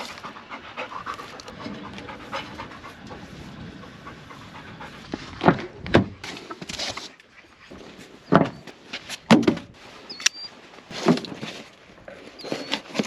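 Panting breaths close to the microphone, with loud puffs coming about once a second in the second half.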